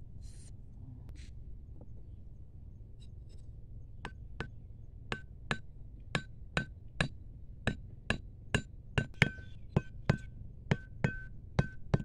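Machete blade striking the top of a thin wooden stick to drive it into the ground: a run of about twenty sharp taps, two to three a second, each with a short metallic ring, starting about four seconds in.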